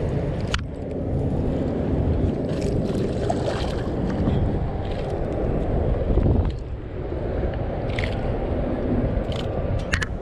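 Steady low rumble of wind and water around a fishing boat, with a few light knocks scattered through it.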